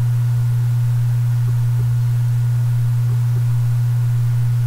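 Loud, steady electrical hum: one unchanging low tone with a fainter thin whine higher up, the kind of hum that comes from a faulty audio connection or interference in the recording chain.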